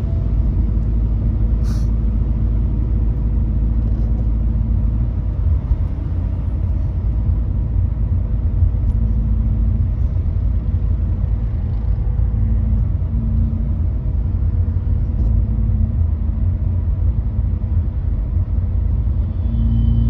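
Steady low road rumble of a car driving on wet pavement, heard from inside the cabin, with a faint steady hum and a short click about two seconds in.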